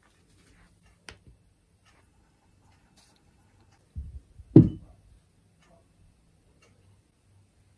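A light click about a second in, then a dull thump on the tabletop a little over four and a half seconds in, the loudest sound here, with a few softer knocks just before it.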